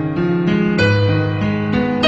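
Piano music: a melody of held notes changing every third to half second over a low bass note.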